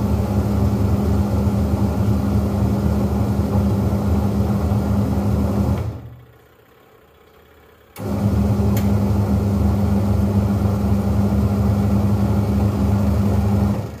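Twin-tub washing machine's wash motor running steadily with a loud hum, driving the pulsator through its refitted drive belt. It stops for about two seconds midway, starts again and cuts off at the end.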